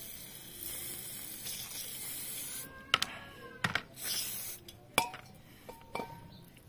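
Aerosol brake cleaner spraying in a steady hiss onto a throttle body for about two and a half seconds to dissolve carbon deposits. Then come a few sharp clicks with a brief ring as the part is handled, and a second short spray burst.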